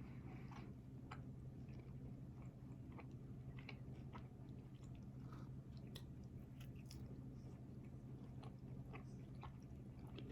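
A person chewing food close to the microphone, with faint, irregular short mouth clicks over a steady low hum.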